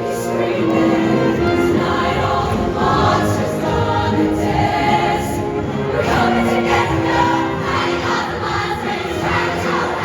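A show choir singing in full harmony over a live band, with held notes.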